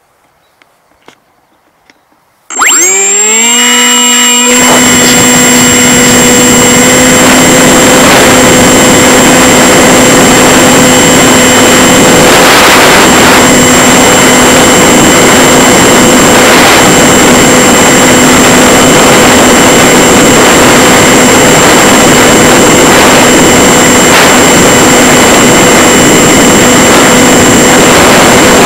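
Electric motor and pusher propeller of a Multiplex EasyStar RC plane, heard up close from a camera mounted on its belly. About two and a half seconds in the motor spins up with a quick rising whine, then holds a steady high whine over loud rushing air as the plane flies.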